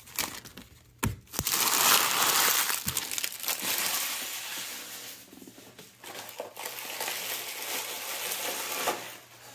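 Empty trading-card pack wrappers being crumpled up by hand, a dense crinkling that starts with a sharp crackle about a second in, is loudest for the next few seconds, then goes on more quietly.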